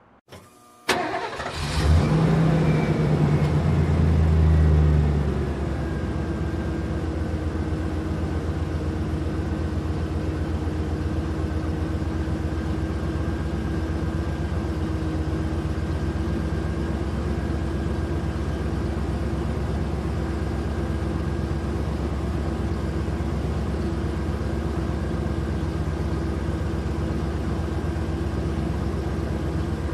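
Engine sound starting with a click, running up loudly for a few seconds, then settling into a steady even idle.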